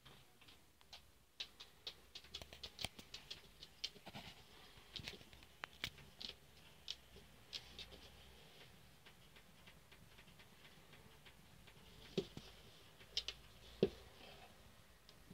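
Irregular faint clicks and ticks, several a second in the first half and sparser later, over a faint hiss, with a few louder knocks near the end.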